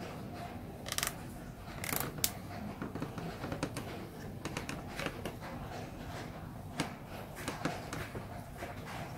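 Small scattered clicks and taps of wooden handle pieces being handled and fitted against a table tennis blade's handle in a wooden clamp, with two short scrapes about one and two seconds in.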